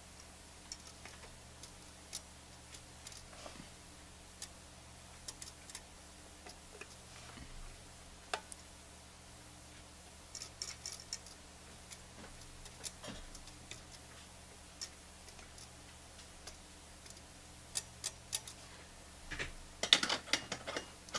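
Faint, irregular clicks and taps of a soldering iron and hand working among the wires and parts of a tube radio chassis while heat-shrink tubing is shrunk with the iron, over a steady low hum. A burst of louder clattering near the end.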